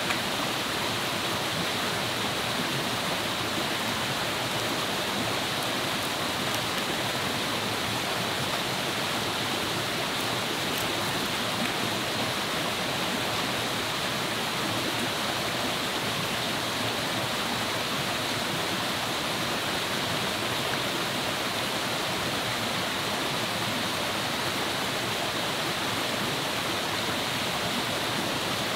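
Steady, even rush of running water from a forest stream, unchanging throughout. A few faint ticks sound between about six and eleven seconds in.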